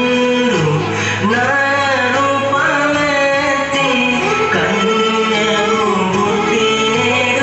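A song playing: a man's singing voice, with bending, ornamented melodic lines, over instrumental backing at a steady level.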